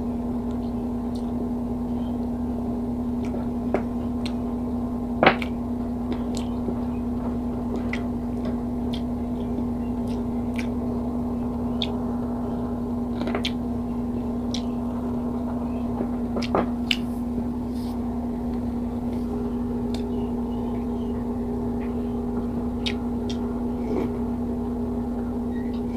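Close-up eating sounds: scattered small clicks and taps of chewing and of pork bits being picked by hand off a wooden board, with a sharper click about five seconds in and again past the middle. Under them runs a steady low hum.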